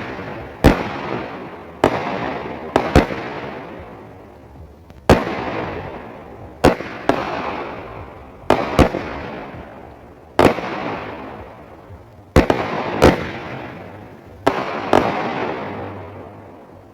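A 16-shot, 200-gram salute cake (World Class 'Charge') firing: about a dozen and a half sharp bangs, roughly one a second and often in close pairs, each trailing off in a long fading echo.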